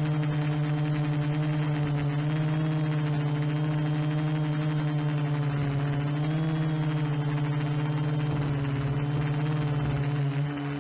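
Quadcopter's brushless motors and propellers humming steadily in flight, heard from the camera on the craft itself; the hum drifts slightly up and down in pitch as the motors adjust their speed.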